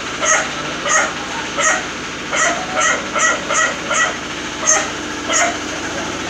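Dog barking repeatedly in short barks, about two a second.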